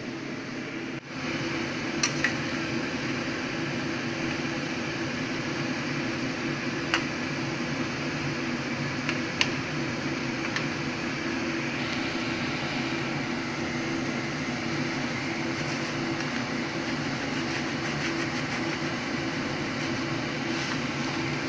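Steady mechanical hum and hiss, with a few light clicks of a metal ladle against the pan.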